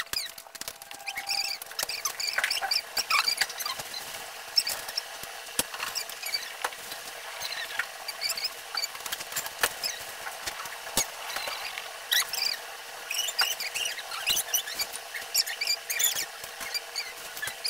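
Small objects and plastic being picked up, sorted and set down on a sofa: a busy run of light clicks, taps and rustles with many short high squeaks.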